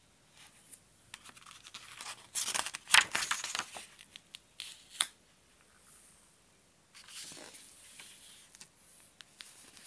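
Pages of a hardcover picture book being flipped and the book handled: a burst of paper rustling a couple of seconds in with a sharp tap about halfway, then softer rustling as the back cover comes round.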